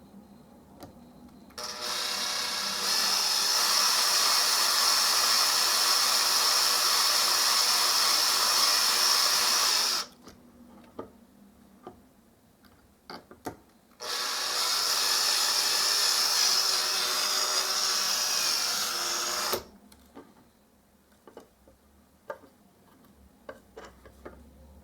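Power drill drilling into the head of a blind (pop) rivet in two runs, the first about eight seconds and the second about five, each starting and stopping sharply at a steady speed. Between the runs are a few small clicks and taps. The drill is taking off only the rivet's face, a little at a time, rather than going all the way through.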